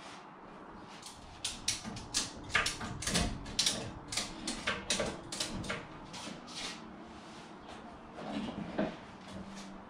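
A run of sharp, irregular clicks and clacks from a tie-down strap's metal hardware being worked on a cart, lasting about five seconds, followed by softer knocks near the end.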